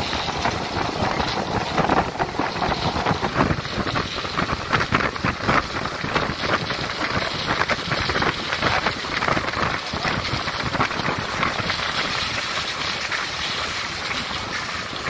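Running noise of a moving vehicle, with wind buffeting the microphone in a rough, crackling rush.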